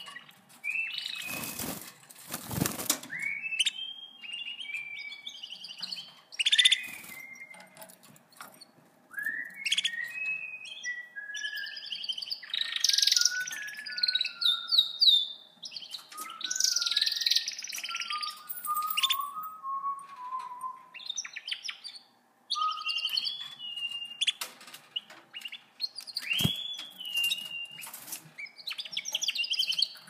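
Domestic canaries singing: a run of warbling phrases, rolling trills and whistled glides, with a falling series of notes in the middle. A burst of wing flapping comes about two seconds in, and a sharp knock near the end.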